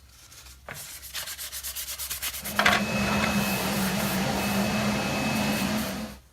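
Abrasive bead blasting of a plastic motorcycle side cover in a blast cabinet, stripping layers of rattle-can enamel. First come quick repeated strokes of grit. About two and a half seconds in it becomes a steady hissing blast with a low hum, which cuts off just before the end.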